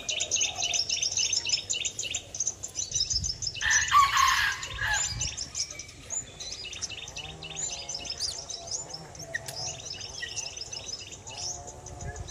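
Many small birds chirping rapidly and continuously in high, overlapping calls, with a louder, harsher burst about four seconds in.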